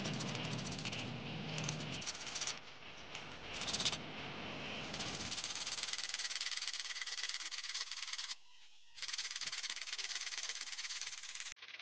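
Sandpaper scraping over a rusty metal plumb bob rubbed by hand: a dry, scratchy rasping made of quick back-and-forth strokes. It breaks off briefly about two-thirds of the way through, then resumes.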